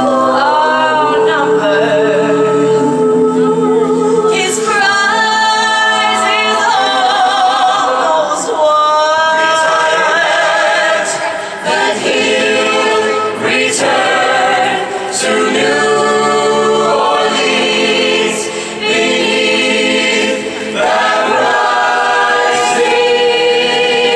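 A cappella vocal group singing in close harmony without instruments, holding long chords with vibrato and phrasing in breaths every few seconds.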